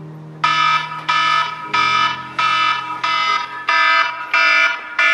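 Smartphone alarm going off: a loud electronic alarm tone pulsing in a steady repeating pattern, about one and a half beeps a second, starting about half a second in.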